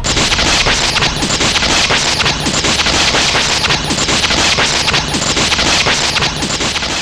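Loud, continuous, dense crackling sound effect of an electric lightning-bolt blast, with rapid sharp crackles throughout.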